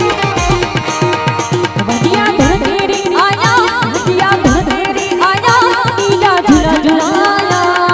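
Live Indian folk music: a fast, steady hand-drum rhythm over a sustained accompaniment. An ornamented, wavering melodic lead comes in about three seconds in.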